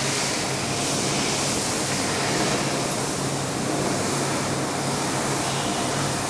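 Bench drill press running steadily while small zinc alloy parts are drilled: an unbroken hiss over a steady low hum.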